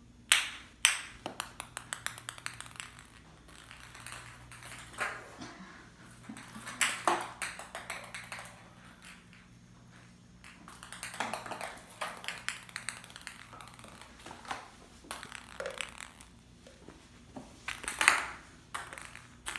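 Plastic ping pong balls bouncing and knocking on a ceramic tile floor as kittens bat them. A quick run of bounces comes faster and faster about a second in, followed by scattered knocks and short rattling runs, with a sharp knock near the end.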